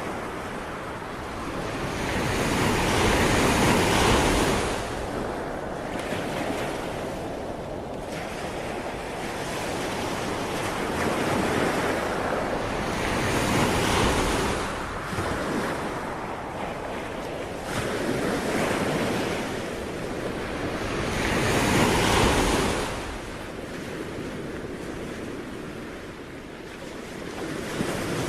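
Ocean waves breaking and washing onto shore, swelling and falling in slow surges about every eight seconds, with wind.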